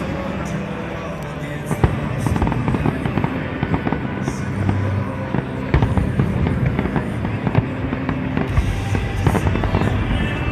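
Fireworks bursting and crackling in quick succession, many sharp bangs throughout, with music playing underneath.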